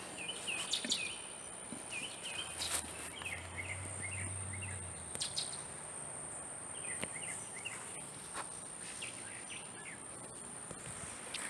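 Outdoor ambience: a songbird repeating short chirping phrases several times, over a steady high-pitched insect drone, with a faint low hum for a couple of seconds a few seconds in.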